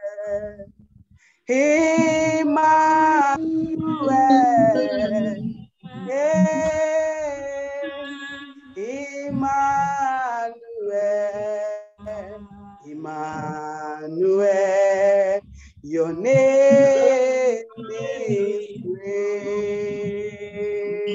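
A woman singing a slow worship song solo, holding long notes in phrases with short breaks for breath between them.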